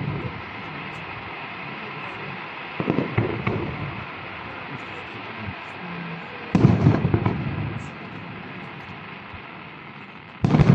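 Fireworks display: aerial shells bursting, three booms a few seconds apart, each trailing off over about a second.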